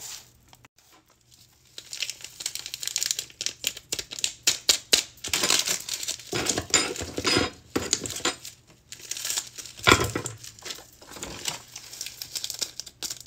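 Packaging from an instant noodle cup crinkling and tearing as its packets are opened and handled, in quick irregular crackles. A single knock about ten seconds in is the loudest sound.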